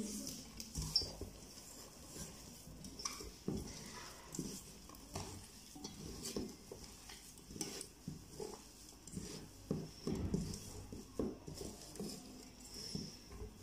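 A hand squishing and kneading mashed boiled potatoes with chopped onion and spices in an enamel pot. It makes faint, irregular soft squelches and light knocks against the pot.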